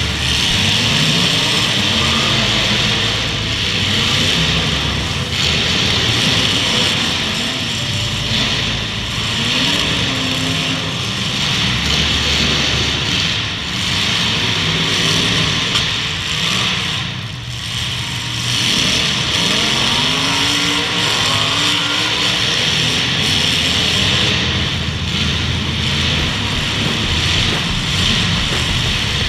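Full-size demolition derby car engines revving up and down hard, several at once, under a steady wash of arena noise.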